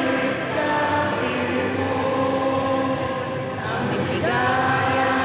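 A national anthem being sung with music, in long held notes that glide from one to the next, in a large sports hall.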